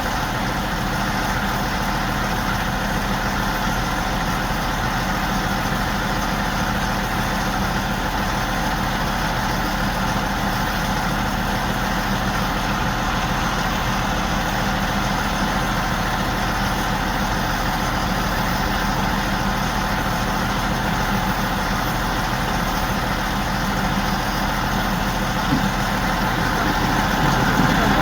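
A big crane's diesel engine running steadily at idle, a steady hum that grows a little louder near the end.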